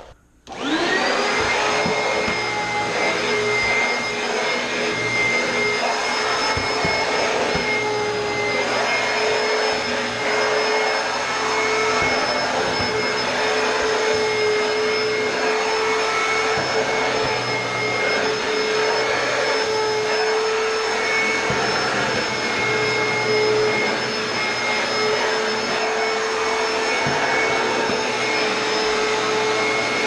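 Oreck XL2 upright vacuum cleaner switched on about half a second in, its motor spinning up quickly and then running with a steady whine.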